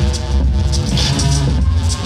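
Loud dance music for the routine, with a heavy bass line and a steady beat.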